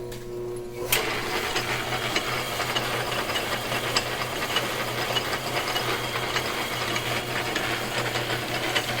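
1944 Sheldon metal lathe running: a steady electric motor hum, joined about a second in by a louder, even whirr and rattle of its gears.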